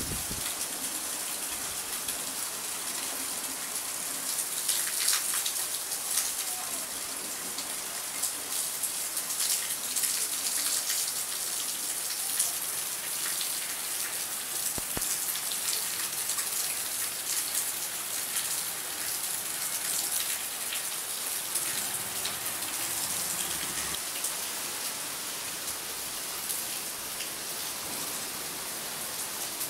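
Steady rain: a dense hiss of many fine drop ticks that swells and eases slightly at times.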